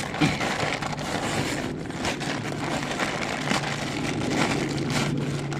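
Plastic packaging crinkling and rustling steadily as it is handled and worked open by hand.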